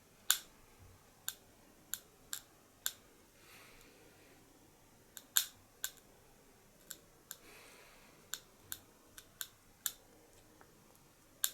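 A series of sharp, irregular clicks and taps, about fifteen in all, over a faint background hiss.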